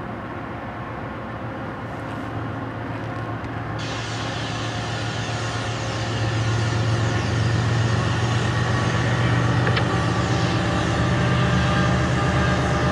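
Diesel engines of an approaching Norfolk Southern freight train's locomotives, led by EMD SD70ACe NS 8101, a steady low drone growing slowly louder as the train nears. A hiss joins in about four seconds in.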